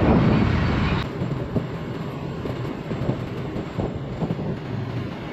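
A moving vehicle's steady rumble, heavy and buffeting at first, then cutting off suddenly about a second in to a quieter, even rumble.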